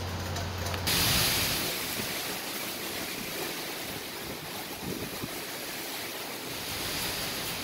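Steady rushing noise of hurricane wind and rain, with wind buffeting the phone's microphone. About a second in, a low hum cuts out and the rush suddenly gets louder, then settles.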